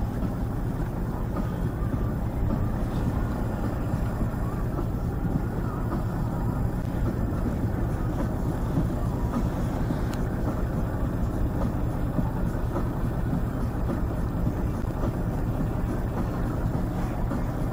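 Fishing boat's engine running steadily, a low drone with water noise over it.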